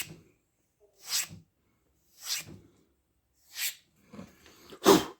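Knife blade being stropped: short swishing strokes about one a second, each a brief scrape along the edge, with handling rustle and a louder knock near the end.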